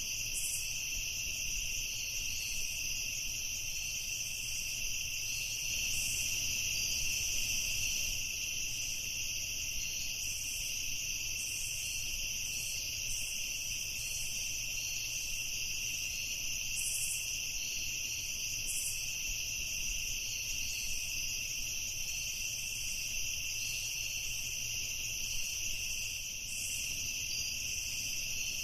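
A steady night chorus of crickets and other insects trilling nonstop at several high pitches over a faint low rumble.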